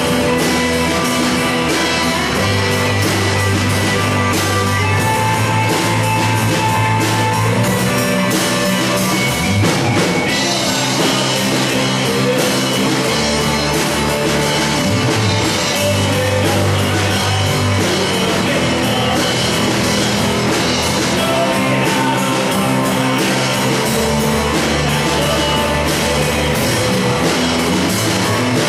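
A live contemporary Christian rock band playing a worship song: held chords over a strong, steady bass, with electric guitar and a drum kit with cymbals.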